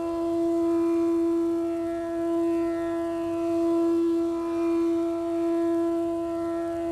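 Quadcopter drone (DJI Phantom 4) hovering: a steady propeller hum on one pitch with overtones, slowly swelling and fading as the four rotors beat against each other.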